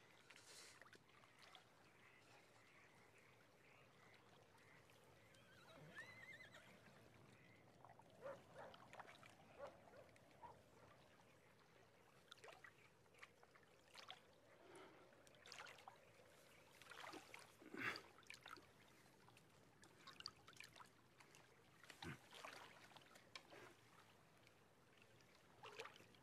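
Faint sloshing and small splashes of water as several men wade slowly through chest-deep water, with scattered soft drips and trickles that come more often in the second half.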